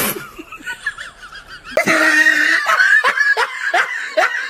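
A person laughing hard: a loud run of short laughs, about three a second, starting about two seconds in.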